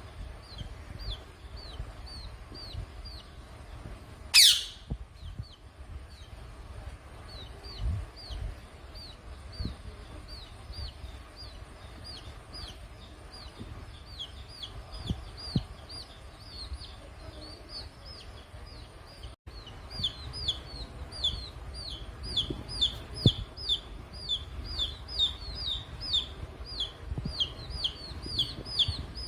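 Young hen chicks peeping continuously, many short falling peeps several a second, coming faster in the second half. About four seconds in, one loud, shrill call sweeps sharply downward and stands above the peeping.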